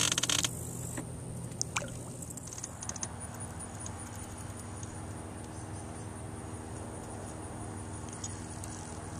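A few clicks and knocks in the first seconds, then a steady low hum with a thin, steady high-pitched insect buzz over it.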